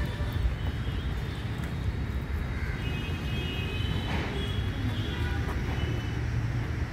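Steady low rumble of outdoor background noise, like a distant engine, with no speech. Faint high-pitched tones come and go around the middle.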